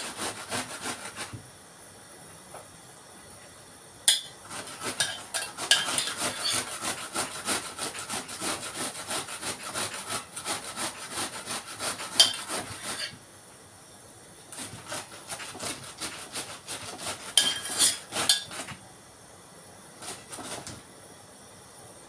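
Red cabbage being grated on a hand box grater: runs of quick rasping strokes with short pauses between them. A spoon now and then knocks sharply against a steel pot.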